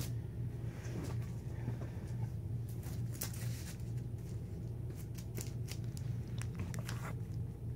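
Comic books being handled and swapped, with scattered light rustles and clicks over a steady low hum.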